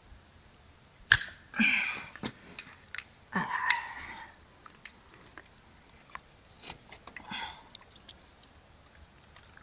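An adjustable wrench working the brass head of a garden tap loose: sharp metal clicks and clinks, the loudest about a second in, with a few short bursts of scraping and handling noise.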